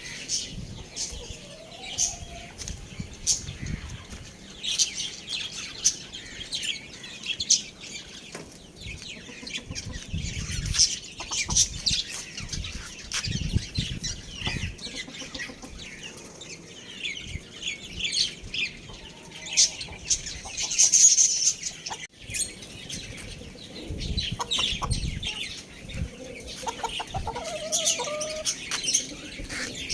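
Young chickens clucking now and then amid wings flapping and shuffling, over many short high-pitched chirps throughout.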